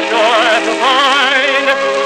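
Music from a 1929 sound-on-disc film recording: a melody with a strong wavering vibrato over accompaniment, stepping up in pitch about three quarters of a second in.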